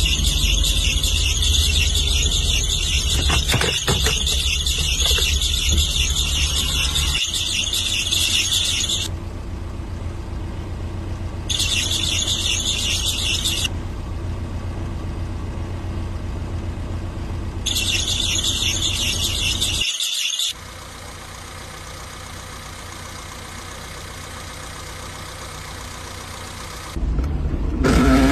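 Old car's engine running with a steady high-pitched squeal over it. The squeal cuts off abruptly and returns in short stretches. A louder pitched burst comes in near the end.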